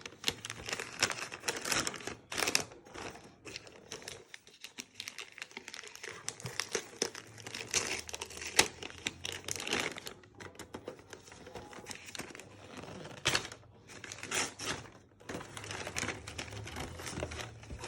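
Christmas wrapping paper crinkling and tearing as a present is unwrapped by hand, in irregular rustles and rips.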